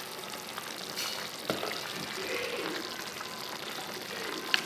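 Pot of potato, carrot and ground beef soup on the heat, the freshly added water sizzling and bubbling with a steady hiss. A few light clicks, the sharpest near the end.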